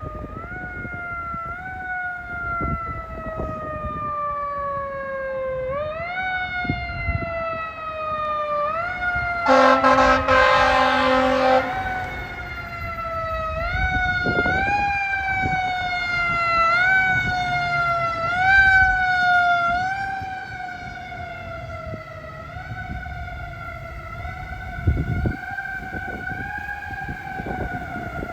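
Fire truck siren repeatedly winding up quickly and sliding slowly back down, cycling faster for a while and then settling into a wavering tone near the end. Two loud, steady horn blasts cut in about ten seconds in, over a low engine rumble.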